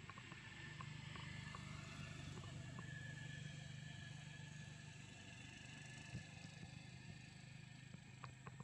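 Faint, steady low hum of a distant motor engine, swelling about half a second in and easing after about six seconds, with a few light clicks.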